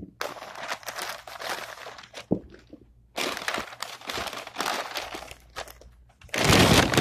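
White packing paper crinkling and tearing as a wrapped parcel is unwrapped by hand. It comes in three spells of crackling, and the last, starting a little after six seconds in, is the loudest.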